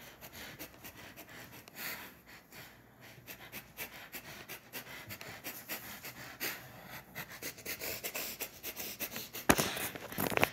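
A person's breathing close to the microphone, with short scuffs and handling clicks as the phone is carried over a tiled floor, and one sharp knock about nine and a half seconds in.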